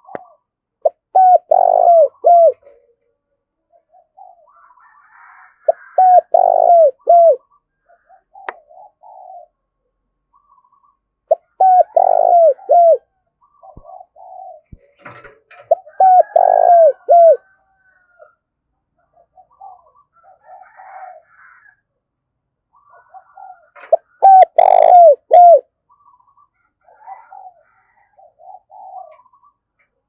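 Spotted dove cooing: five loud phrases spaced several seconds apart, each made of three or four short, falling coo notes.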